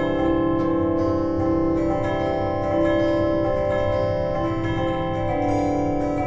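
Instrumental music: a slow melody of long held notes, a new note about every second, over a steady low layer.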